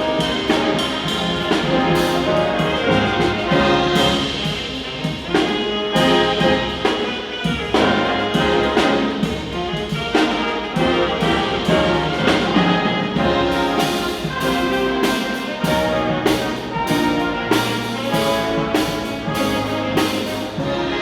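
School band playing live, trumpets and trombones over a steady drum beat.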